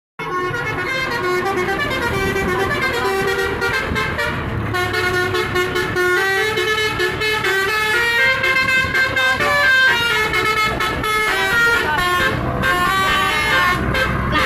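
Telolet multi-tone air horn on a Scania container truck playing a tune of quick stepped notes, over a low rumble.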